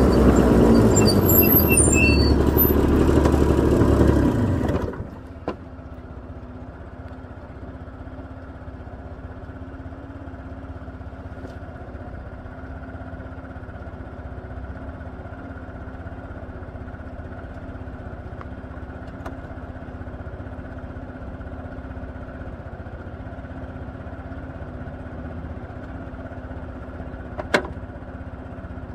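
Honda Gyro X (TD01) late-model 49 cc single-cylinder two-stroke engine running loud under way. About five seconds in it drops to a steady idle, as when the trike is halted at a stop. There are a few brief high squeals near the start and a single click near the end.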